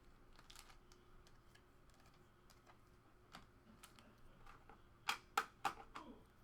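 Scattered light clicks and taps of small objects being handled on a table, with three sharper clicks in quick succession about five seconds in.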